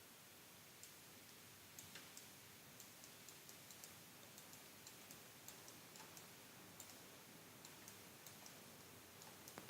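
Faint, irregular clicks of a computer mouse over a quiet hiss.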